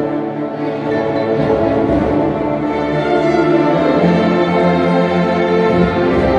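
String orchestra with a wind band playing together: bowed violins, cellos and double basses with saxophones and brass sustaining full chords. A low held note comes in about four seconds in and stops shortly before the end.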